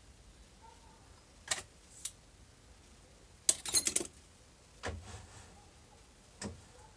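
Sharp metallic clicks and knocks from a digital caliper being handled against the bored steel workpiece and withdrawn, with the lathe stopped. A short clatter of metal about halfway through is the loudest sound, and two duller knocks follow near the end.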